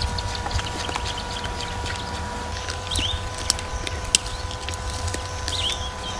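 Birds chirping in short swooping calls over a steady low rumble, with two sharp clicks about three and a half and four seconds in.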